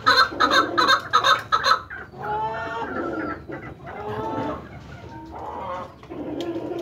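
Male Qandari chukar partridge calling: a fast run of loud chuck notes, about four a second, for the first two seconds, then three softer, longer calls of about a second each.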